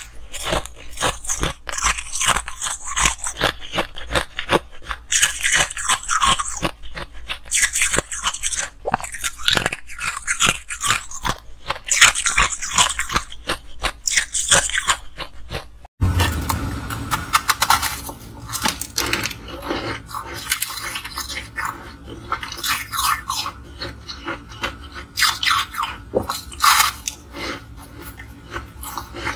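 Close-up crunching and chewing of frosty white ice chunks, crisp crunches following one another rapidly. About halfway through it cuts to a different recording: duller crunching of pink-tinted frosty ice blocks with a low hum beneath.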